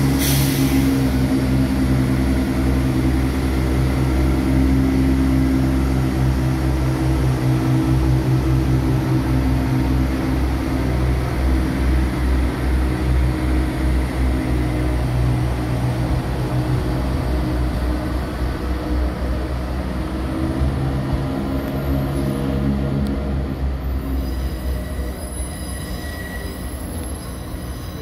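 Class 170 Turbostar diesel multiple unit's underfloor diesel engines running with a steady drone as the train pulls away, slowly fading. Near the end, thin high wheel squeal comes in as it takes the curve.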